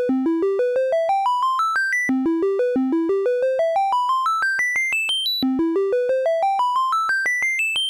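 Elektron Monomachine synthesizer arpeggiator playing fast rising runs of short, evenly spaced notes, about seven a second. Each run climbs several octaves, then drops back to the bottom and starts over, twice in this stretch.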